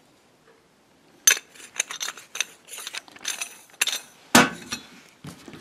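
Metal sink strainer parts (lock nut, washer and strainer body) being handled and clinking together. A quick run of clicks and clinks starts about a second in, with one louder knock a little past four seconds.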